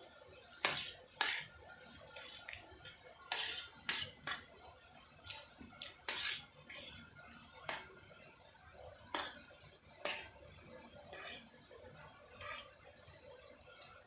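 Cutlery clinking and scraping against a plate while eating Maggi noodles: irregular short, sharp clinks, some in quick pairs, spread unevenly with gaps between.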